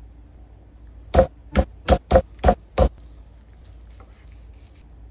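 Six quick, sharp knocks on a wooden cutting board, irregularly spaced over about two seconds, over a low steady hum.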